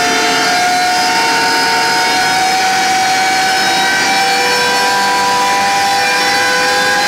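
All-gear Marco No. 1060 fishing winch running at speed, its drum spinning with a loud steady whine that rises slowly in pitch as it speeds up.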